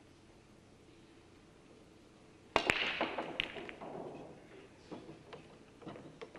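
Nine-ball break shot: a sharp crack as the cue ball smashes into the rack about two and a half seconds in, then the balls clattering and clicking off each other and the cushions, thinning out over the next few seconds.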